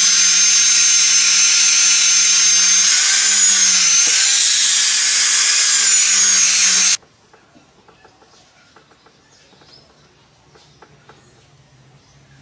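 A high-speed power tool runs steadily with a high whine, its pitch dipping and recovering briefly about three to five seconds in. The sound cuts off abruptly about seven seconds in, leaving faint clicks and taps of small parts being handled.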